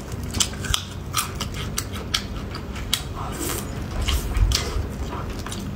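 Close-miked mouth sounds of a person eating: frequent wet clicks and smacks while chewing, and a bite into soft meat with a low thump about four seconds in.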